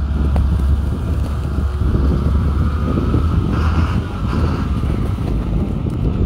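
Road traffic at a busy intersection, with a truck passing close by, and wind rumbling heavily on the phone's microphone.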